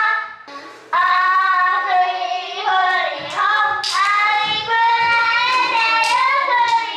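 Young children singing a song in long notes that slide up and down in pitch, breaking off briefly about half a second in.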